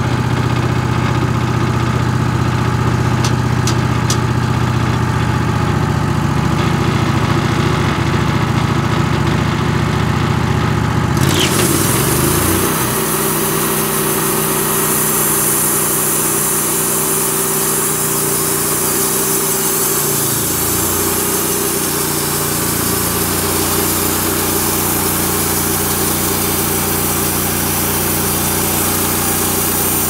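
Wood-Mizer LX150 band sawmill running, its engine driving the band blade through a northern red oak log to square it up. The engine note and the hiss change abruptly about eleven seconds in and shift again about twenty seconds in.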